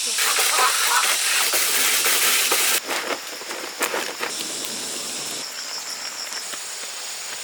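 Steady hissing noise that cuts off abruptly about three seconds in, giving way to a quieter hiss with scattered clicks and a faint thin high whine.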